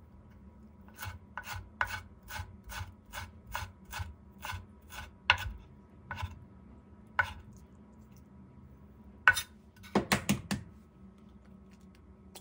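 Chef's knife chopping dill on a bamboo cutting board: an even run of chops about three a second, then a few slower single chops and a short flurry of louder knocks about ten seconds in.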